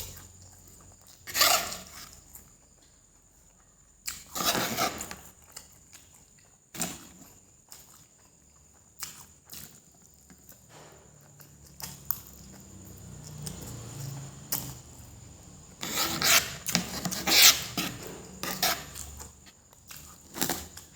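Close-miked eating of spicy fried noodles: short noisy bursts of mouth sounds as mouthfuls are taken and chewed, about a second and a half in, around four to five seconds, near seven seconds, and a louder cluster from about sixteen to eighteen seconds.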